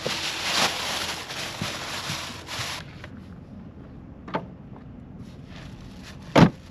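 Plastic shopping bags rustling for about three seconds as they are crammed into a small car's cargo space, then a few light knocks and one louder thump near the end.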